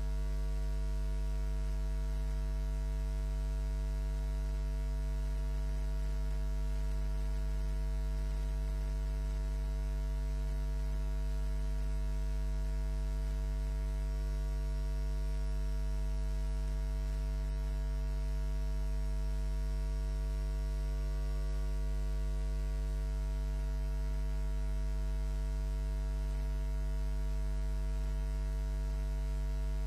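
Steady electrical mains hum at about 50 Hz with a stack of higher overtones and a faint hiss, unchanging throughout.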